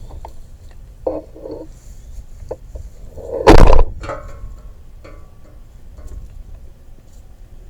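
A big hammer strikes the steel splitter frame once, a very loud bang about three and a half seconds in that rings on briefly, with a few lighter metal knocks and clanks before and after it.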